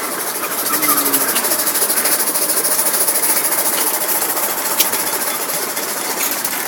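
A Waterloo-built 2 HP Majestic hit-and-miss gasoline engine running, a fast, even mechanical clatter with a hiss over it.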